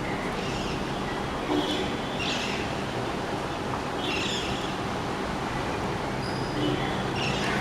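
Short bird chirps and calls, about five times, over a steady background hiss.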